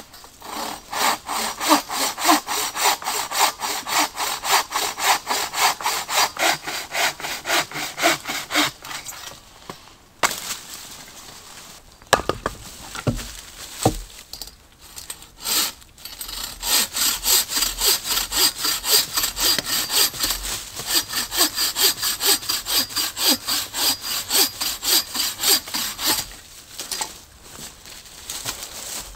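Wood being cut with a hand saw in two long runs of steady back-and-forth strokes, with a pause and a few knocks in the middle.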